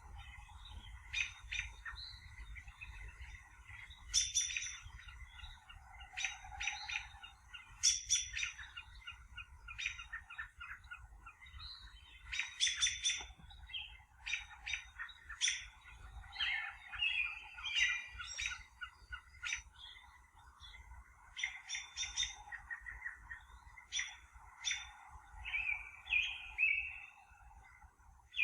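Several wild birds chirping and calling, with short chirps and trills coming a few times a second and then pausing, over a steady low background noise.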